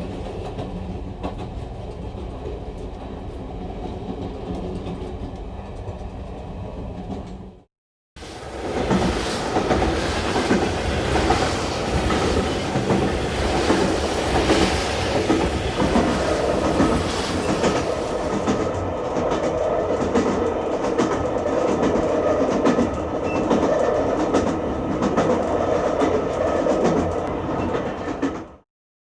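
Train running on rails. A steady rumble plays for the first seven or so seconds; after a brief cut to silence, a louder clip follows with train wheels clattering rhythmically over the rail joints.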